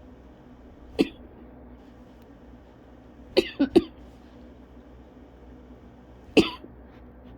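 A person coughing in short, sharp coughs: a single cough, then a quick run of three, then another single cough. It is the lingering cough of cough-variant asthma following bronchitis.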